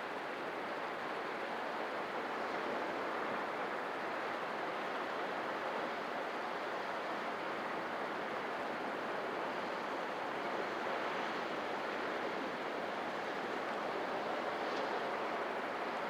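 Sea surf: a steady wash of waves with slow, gentle swells in loudness.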